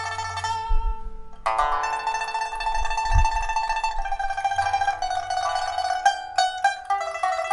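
Solo pipa with white ox-horn phases, a red rosewood body and a steel first string, being test-played after a full repair. A sustained tremolo note stops about half a second in, then after a short gap a loud struck chord opens a tremolo melody, with a few sharp plucked chords near the end.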